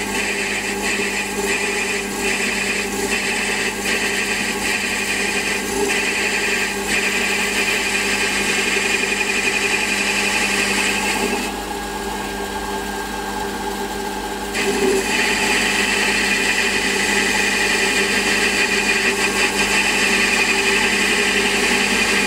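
Warco metal lathe running under power while a turning tool takes a cut down the diameter of a metal handwheel: a steady cutting hiss over the hum of the lathe's motor and gearing. The cutting sound drops away for about three seconds just past the middle, then resumes.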